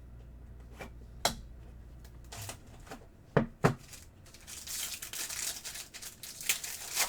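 A few sharp knocks, then plastic wrapping being torn and crinkled for a couple of seconds near the end, as a trading card box and its packs are opened.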